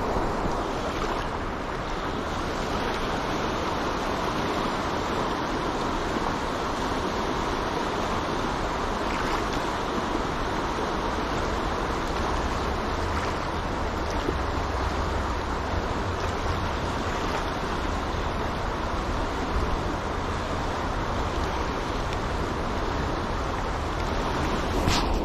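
Fast river current rushing steadily through a riffle, with a low rumble of wind on the microphone.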